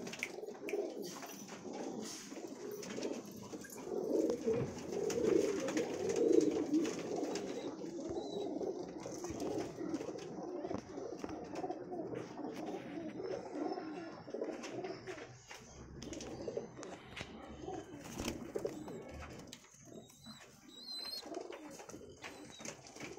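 Many domestic high-flyer pigeons cooing at once, an overlapping, continuous chorus. It is loudest about four to seven seconds in and thins out near the end.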